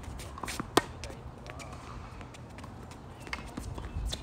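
Tennis rally on a hard court: a string of sharp pops from racket strikes and ball bounces, the loudest under a second in and more near the end.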